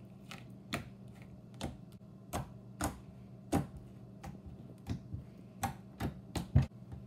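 Homemade glue slime with glitter and small metal beads being pressed and poked by hand, giving off a string of sharp clicks and pops, about two a second, the loudest near the end.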